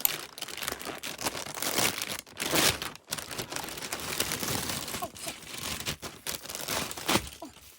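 Plastic packaging crinkling and rustling as it is handled and pulled open, with a few louder crackles.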